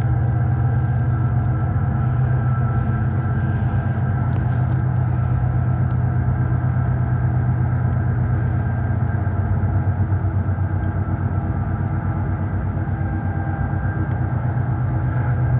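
Diesel locomotive engine sound effect for an HO scale Canadian Pacific SD90/43MAC model, a steady low engine drone with an even, fast pulse.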